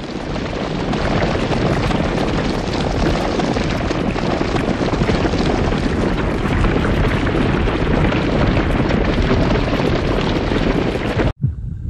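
A herd of red deer running, their many hooves making a dense, continuous rumble that cuts off suddenly near the end.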